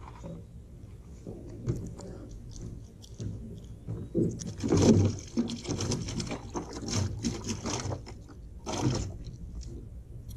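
Water splashing, strongest in bursts about four to five seconds in and again near nine seconds, as a fish is reeled up and lifted out of the lake beside the boat.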